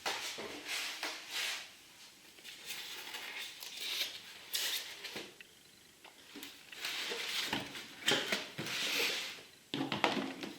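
Unboxing handling noise: irregular rustling and scraping of packaging being handled, in bursts of about a second with short quiet gaps.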